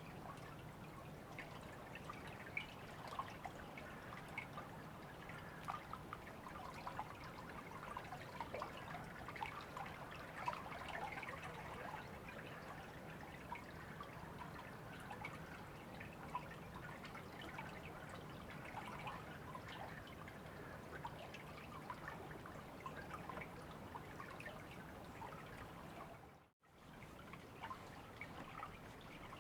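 River water flowing steadily, with many small splashes and drips over a constant rush. The sound drops out completely for a moment near the end.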